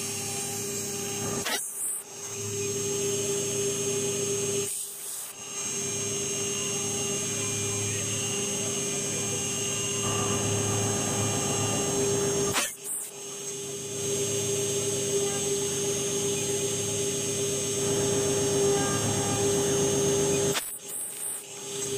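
Small CNC router spindle running steadily with a high whine as its engraving bit cuts letters into a brass disc. The sound breaks off briefly four times.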